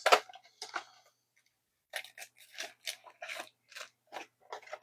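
Plastic card-pack wrappers crinkling and tearing as trading-card packs are opened by hand, a quick run of short crackles at first and then spaced crackles about two a second.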